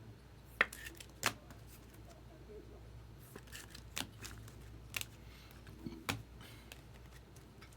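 Trading cards being handled on a table: several sharp clicks, a second or so apart, with light rustling between them.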